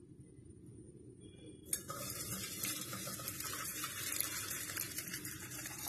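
Boiled chopped onions and their hot cooking water poured from a saucepan into a stainless-steel mesh strainer over a steel bowl, splashing steadily. The pour starts suddenly a little under two seconds in, after a short quiet spell.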